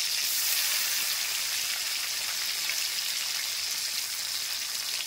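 Tomato pieces and whole spices sizzling in hot oil in a kadai: a steady hiss.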